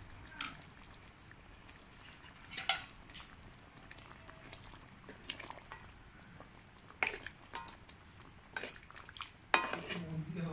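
A metal ladle stirring chicken curry in a metal kadai, clinking and scraping against the pan in scattered, uneven knocks. The loudest knocks come about a quarter of the way in and near the end.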